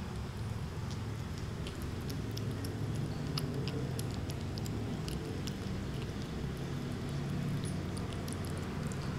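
Persian kittens eating wet cat food from plastic containers: many small, irregular wet clicks and smacks of chewing and lapping, over a steady low rumble.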